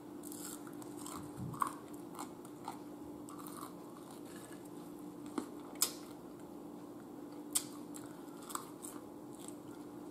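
Close-mouthed chewing of French fries, with scattered soft crunches and wet mouth clicks, over a steady low hum.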